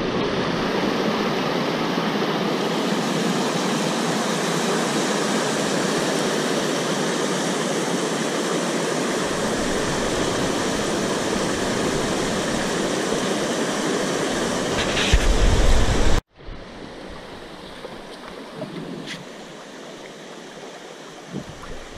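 Rushing water of river rapids, a loud steady roar. About 16 seconds in it cuts off abruptly and is replaced by a quieter steady wash of river water and wind.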